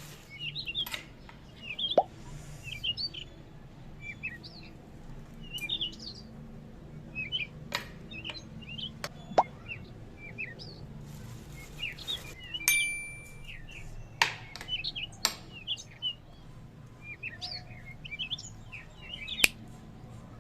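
Small birds chirping in short, quick calls throughout, with a few sharp clicks or knocks scattered between them and a brief rustle near the middle.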